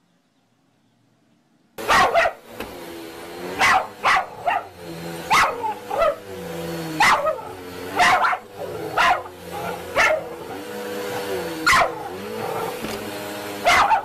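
A small dog barking sharply about a dozen times at a running vacuum cleaner, starting suddenly about two seconds in. The vacuum's motor drone carries on steadily under and between the barks.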